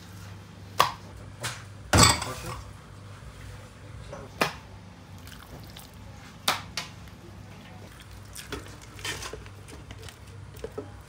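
Kitchen handling sounds: a series of sharp, wet slaps and knocks as raw chicken thighs are handled and laid down on a plastic cutting board and in a tray. The loudest comes about two seconds in. A low steady hum runs underneath.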